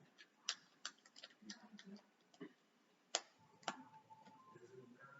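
Lego plastic bricks clicking and tapping as they are handled and pressed together: faint, irregular clicks, with two louder snaps about three seconds in.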